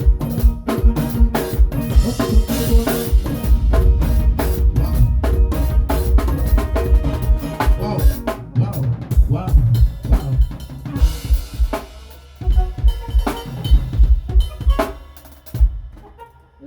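Drum kit played live in fast, busy patterns of snare, bass drum and rimshot hits over pitched backing music. The playing thins out and drops away near the end.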